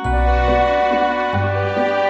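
Background music: sustained keyboard notes over a changing bass line, with a light tinkling high part.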